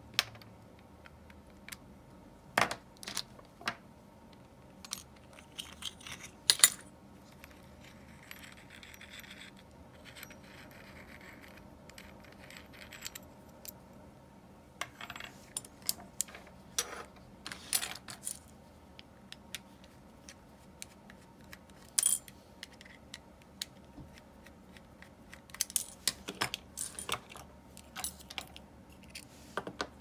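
Small metal parts of an Abu Garcia Ambassadeur 1500C baitcasting reel clinking and clicking as the reel is worked on, in scattered sharp clicks. A soft rubbing hiss runs for a few seconds about a third of the way in.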